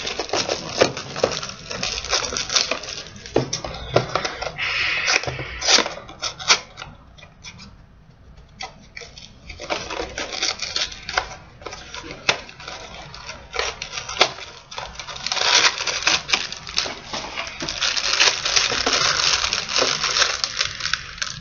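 Plastic packaging crinkling and crackling as hands work a small vinyl figure out of its bag, with many sharp crackles. There is a quieter spell about seven to nine seconds in, and denser, steadier rustling near the end.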